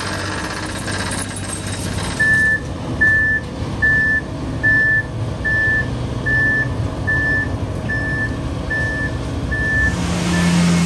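Truck backup alarm beeping steadily, a little more than one beep a second, starting about two seconds in, over the low rumble of running diesel truck engines.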